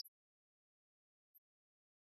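Near silence, broken only by a faint, very short high-pitched tick at the start and another about a second and a half in.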